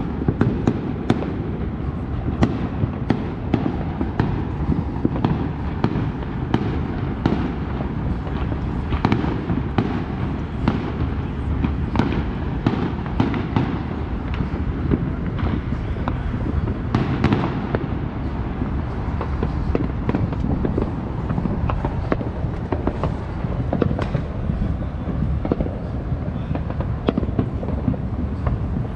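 Fireworks and firecrackers going off all over the neighbourhood: a steady stream of irregular bangs and pops at many distances, one after another.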